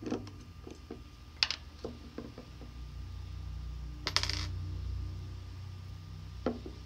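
Small clicks and taps of a dual-action eye makeup remover bottle and its cap being handled, with a brief rushing burst about four seconds in as the remover is shaken and dispensed onto a cotton pad. A steady low hum runs underneath.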